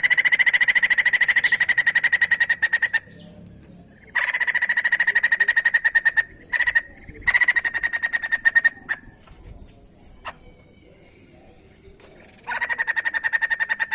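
White-crested laughingthrush giving a fast, even, rattling trill at a steady pitch, in four or five bouts of one to three seconds separated by short pauses, with a longer pause before the last bout near the end.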